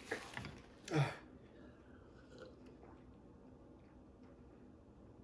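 A man blowing his nose into a paper napkin: a few short noisy blasts in the first second, the loudest about a second in. After that, faint gulping as he drinks from a cup.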